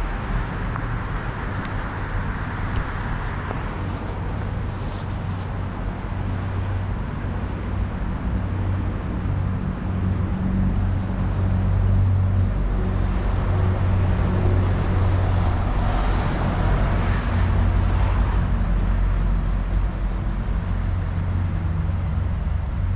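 City road traffic: a steady low rumble of cars going by, growing louder through the middle stretch as vehicles pass close.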